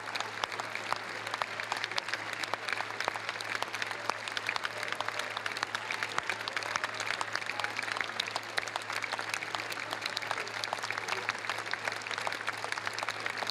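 Large theatre audience applauding: dense, steady clapping that keeps up without a break.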